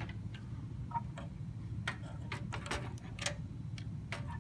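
Irregular small clicks and taps of plastic cable connectors and hardware being handled as a power supply cable is plugged into a hard drive.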